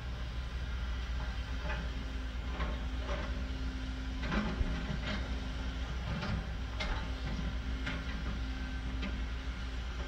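Bulldozer and excavator diesel engines running with a steady low hum, with irregular knocks and clatters of boulders being pushed and tumbling, roughly once a second.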